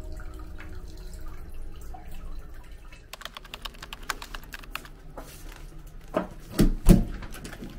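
Faint water trickling in an open-air stone bath, then from about three seconds in a quick run of small clicks and rustles of handling. Near the end a room door's metal lever handle is pressed and the door unlatches and swings with a knock and two heavy thumps.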